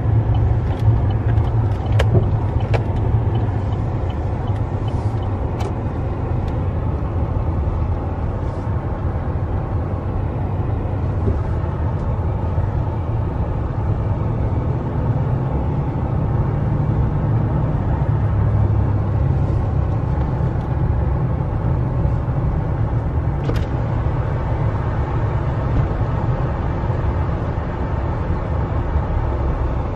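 Steady road noise heard from inside a moving vehicle: a low engine-and-tyre rumble, with a few faint clicks.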